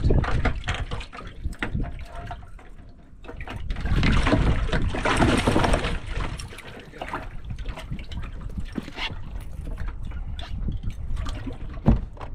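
Water splashing and sloshing in a bass boat's livewell as fish are handled, loudest for a couple of seconds in the middle. There is wind rumble on the microphone underneath and a sharp knock near the end.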